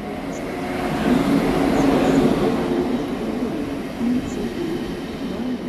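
A train running along the tracks, its rumble building to a peak about two seconds in and then easing off.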